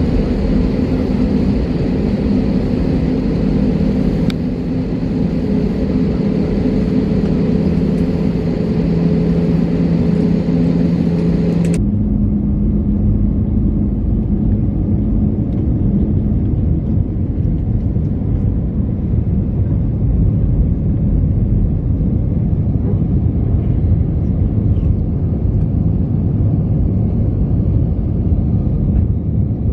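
Jet airliner engine and cabin noise heard from inside an Airbus A320-family jet: a steady hum with a few held tones. About twelve seconds in it changes abruptly to a steady, low rumble of the engines at climb power as the plane climbs out.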